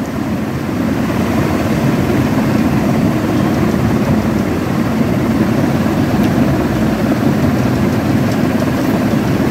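A steady, low mechanical drone of a running machine. It swells a little in the first second, then holds even.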